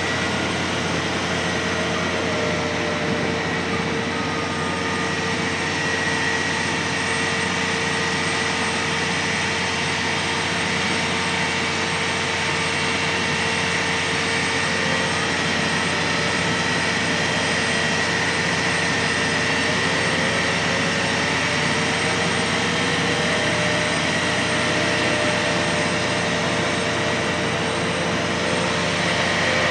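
Heavy diesel engines of Manitowoc crawler cranes running steadily during a heavy lift, a constant hum with a steady whine over it.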